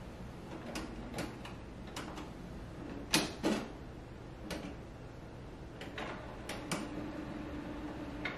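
Canon Pixma iX6820 inkjet printer starting up for the first time with its ink cartridges freshly installed. Irregular mechanical clicks and clunks sound over a faint steady motor hum, with the loudest two about three seconds in.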